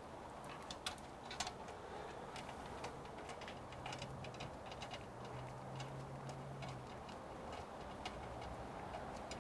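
Irregular light clicks and taps from small metal and plastic parts being handled during a CPU cooler installation, over a steady low hum.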